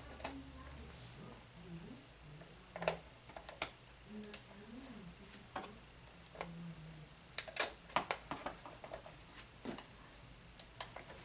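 Small hand tools and metal parts of an RC rock crawler's suspension clicking and tapping as they are handled on a workbench: about a dozen scattered, sharp clicks, the loudest about three seconds in and around eight seconds in.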